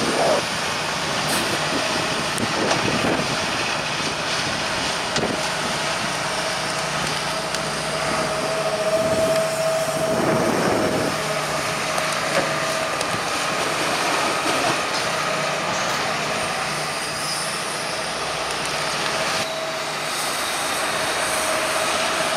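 Heavy diesel machinery running steadily: a Hitachi Zaxis 210 excavator working beside a New Holland T7.245 tractor and slurry spreader, with a steady whine over the engine noise.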